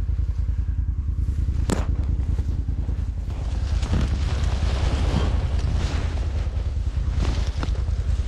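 Argo amphibious ATV engine idling with a fast, even low throb. Brush rustles as branches are pushed aside and gripped, with a single sharp snap about two seconds in.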